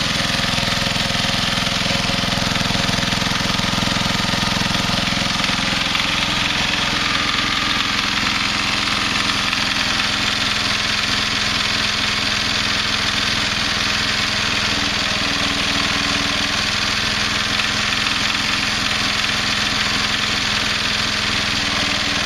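Simplicity 4211 garden tractor engine running steadily with its muffler removed: a loud open exhaust with a rapid knocking rattle. The owner takes it for an engine knock and wonders whether carbon build-up on the head is being hit by the piston.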